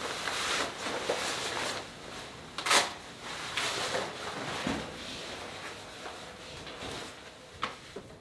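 Handling noises: a run of rustles and short knocks of things being moved about, the loudest a sharp knock about two and a half seconds in and another short one near the end.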